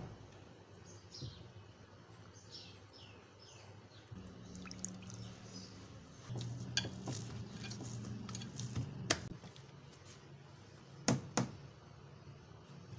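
Hands mixing wheat flour with water and kneading it into dough in a terracotta bowl: faint wet working sounds, with two sharp knocks close together about eleven seconds in.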